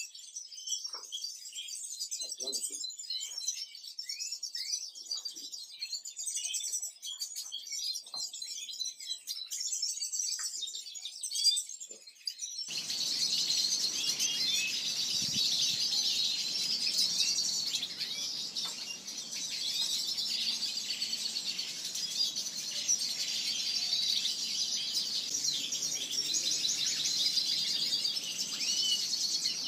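Many small aviary finches, goldfinches among them, chirping and twittering without a break in a dense chorus of high calls. About twelve seconds in, the sound changes abruptly to a fuller, busier chorus.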